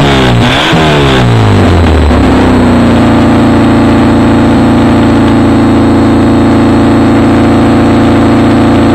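Fiat Ritmo S1300 rallycross car's four-cylinder engine running with no exhaust fitted. It is revved in a couple of quick blips, then drops back about three seconds in to a loud, steady idle.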